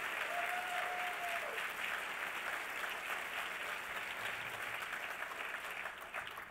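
Audience applauding in a large hall, the clapping dying down near the end.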